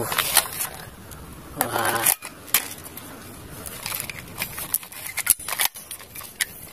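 Plastic toy AK-47 rifle being handled and worked, giving a scattered series of sharp plastic clicks at irregular intervals.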